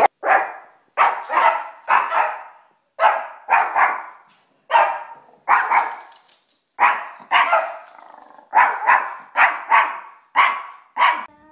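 Small terrier barking repeatedly in short, sharp barks, about one to two a second in uneven runs.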